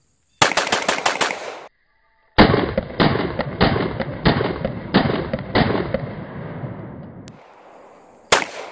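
CZ Shadow 2 9mm pistol fired rapidly: a quick string of about seven shots in just over a second, then a longer string of about ten duller shots at about three a second that fades away, and one last shot near the end.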